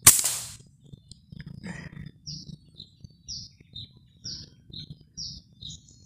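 A single air rifle shot, a sharp crack that dies away within half a second. After it a bird repeats a short, high, falling call about once a second.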